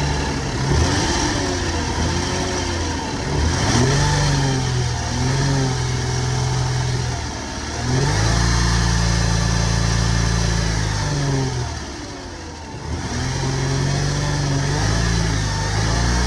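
2006 Lexus IS250's 2.5-litre V6 engine being revved again and again, its pitch rising and falling in short sweeps between spells of steadier running. The engine has failed, which the owner puts down to a bad rod bearing or main bearing.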